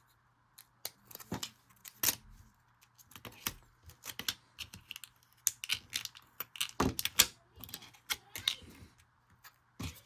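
Irregular clicks and taps of a Milwaukee Fastback 6-in-1 folding utility knife being handled, its parts worked open and closed while fitting the blade.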